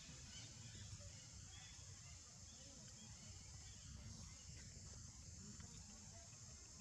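Near silence: faint outdoor ambience, a steady high hiss of insects over a low rumble.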